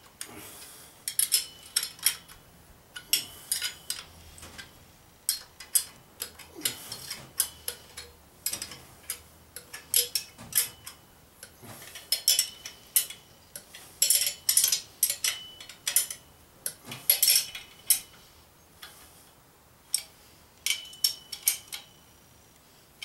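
Irregular metal clicks and clinks of hand tools working the exhaust head pipe and its fasteners at the cylinder head of a Yamaha XS650, some in quick runs, as the pipe is seated and bolted in place.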